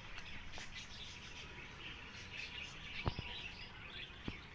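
Many small birds chirping at once, a steady busy twittering, with a couple of short sharp knocks about three seconds in and another near the end.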